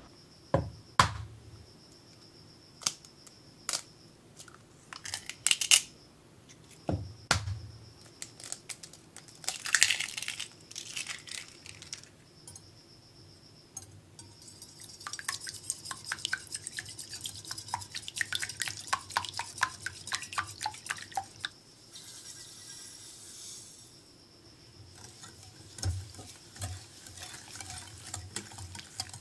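Two eggs rapped and cracked open over a glass bowl. Then a wire whisk beats them against the glass in a fast run of clinking strokes. Granulated sugar pours in with a soft hiss, and the whisking starts again near the end.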